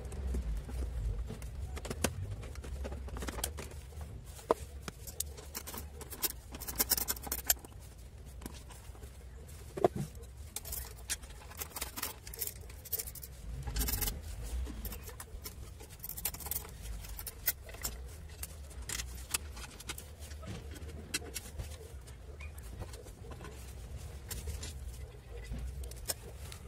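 Irregular clicks, taps and light metallic rattles of a 10 mm wrench working the bolts on a scooter's plastic transmission covers, with bolts and plastic being handled, over a low steady hum.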